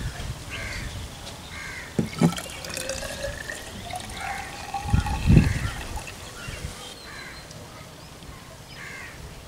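Diluted sulfuric acid poured from a plastic bottle into a plastic measuring cylinder: a trickle whose pitch rises as the cylinder fills. Birds call repeatedly throughout, and there is a dull thump about five seconds in.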